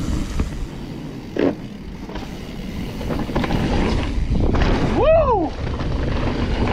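Wind rushing over the microphone and an enduro mountain bike rattling over a dirt trail, with scattered clicks and knocks. A rider shouts "Woo!" about five seconds in.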